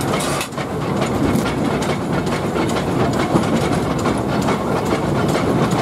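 1952 Bundaberg Fowler 0-6-2T narrow-gauge steam locomotive under way, heard from its footplate: a steady run of rattling, clanking and clicking from the engine and the wheels on the track.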